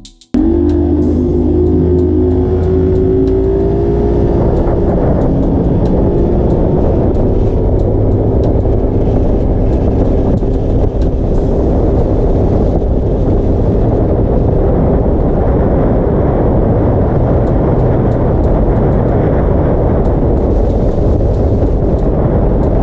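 Bass boat outboard motor running at speed, with wind and water noise; its pitch rises slightly over the first few seconds, then holds steady.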